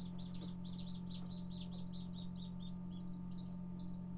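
Many newly hatched chicks peeping rapidly and without a break, over a steady low hum.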